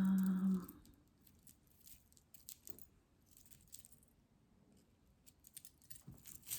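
A short hummed 'mm' from a woman's voice, then faint scattered clicks and light clinks of costume jewelry (beads, chains and metal pieces) being handled and sorted.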